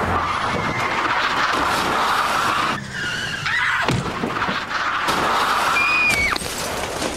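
Tyres of a BMW 3 Series saloon screeching in a long, hard skid on tarmac, breaking off briefly about three seconds in and ending with a squeal that falls away sharply just after six seconds.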